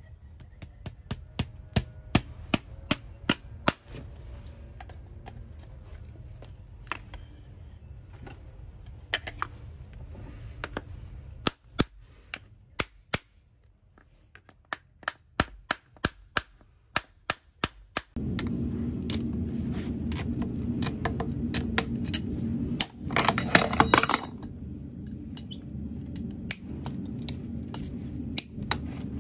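Farrier's driving hammer tapping horseshoe nails through a steel shoe into a horse's hoof, in runs of quick, sharp metallic strikes. About two-thirds of the way through, the strikes bunch into a rapid rattle.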